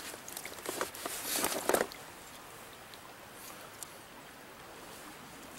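A few clicks and short rustling noises of hands handling gear in the first two seconds, then the faint, steady rush of a flowing stream, with one more small click a little before the middle.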